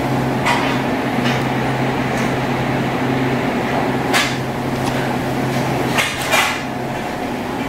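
About five sharp knocks and clunks of household things being moved and put away, over a steady background hum.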